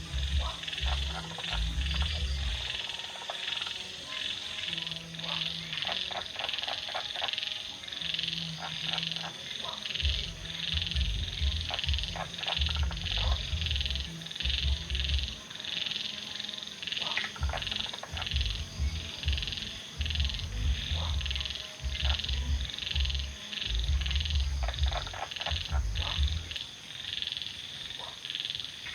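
A chorus of frogs croaking continuously: deep croaks come and go about once a second over a steady high-pitched trilling.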